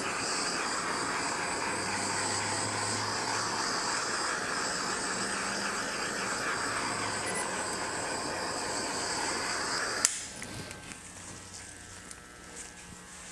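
Handheld torch flame hissing steadily as it is played over wet acrylic pour paint to bring up cells, then shut off with a click about ten seconds in.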